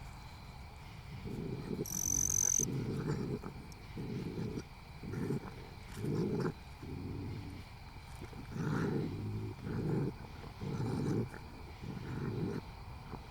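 A series of low, rough growls, about a dozen pulses each under a second long, separated by short, uneven gaps. A brief high whistle-like tone sounds about two seconds in.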